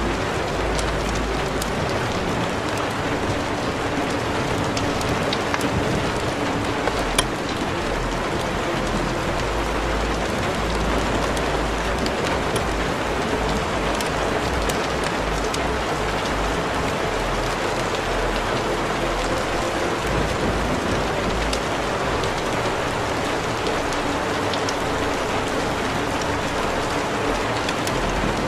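Steady hiss of heavy rain, with irregular deep rumbles underneath and a few sharp clicks.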